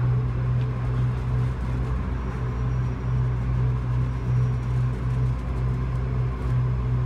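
Steady low hum and rumble inside the cabin of an Otis Hovair air-levitated people mover running along its guideway.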